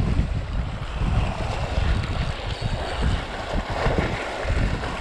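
Wind buffeting the microphone in uneven gusts, over waves washing against the jetty rocks.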